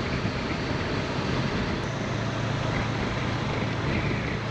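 Wind rushing over a helmet microphone on a moving motorcycle, with the steady low drone of a Honda CB500X's parallel-twin engine underneath.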